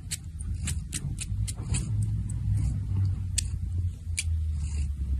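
A domestic cat suckling on its own front paw, making irregular wet sucking clicks over a low, steady purr.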